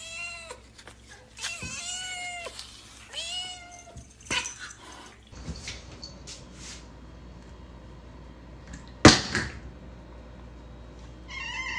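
A cat meowing three times in the first few seconds, each meow rising and then falling in pitch. Later there is a single sharp knock about nine seconds in.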